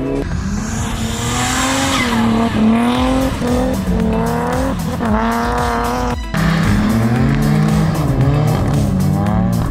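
Rally car engines revving hard as the cars drift on snow and ice, the pitch climbing and dropping every second or so, with a brief break about six seconds in.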